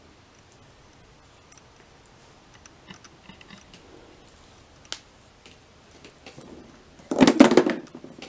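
Small plastic dolls being handled, with faint scattered clicks, then a louder clatter of plastic on plastic about seven seconds in as a doll is set on top of a plastic jewelry box.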